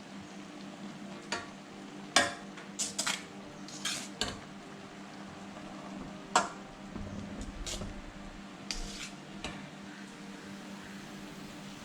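A serving spoon knocking and scraping against a cooking pot, about a dozen irregular clinks, as cooked rice is spooned over the chicken in layers for biryani. A steady low hum runs underneath.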